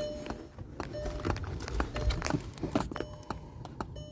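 Speaker polarity test track ticking through a car's speakers, several small clicks a second, which a handheld phase tester held to each speaker uses to check that it is wired in the right polarity. Rubbing and knocking from handling crowds the middle stretch.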